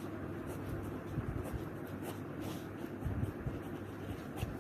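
Pen scratching across ruled notebook paper in short strokes as an equation is written out by hand, with a few soft bumps of the hand on the page.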